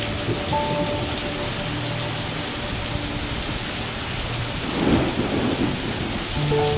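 Heavy rain falling steadily, with a rumble of thunder swelling about five seconds in.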